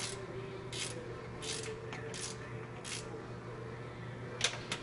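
Hand ratchet turning a fuel injection pump mounting bolt: short runs of ratcheting clicks about every three-quarters of a second, then a sharp metal clack near the end, over a steady low hum.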